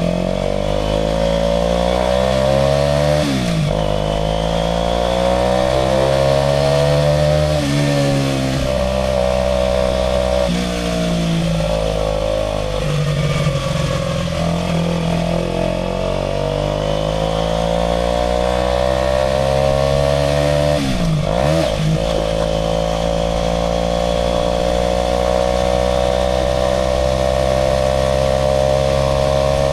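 Aprilia RS4 125's single-cylinder four-stroke engine pulling the bike along, its pitch climbing steadily under throttle with quick dips and recoveries at gear changes about 3.5, 7.5 and 21 seconds in.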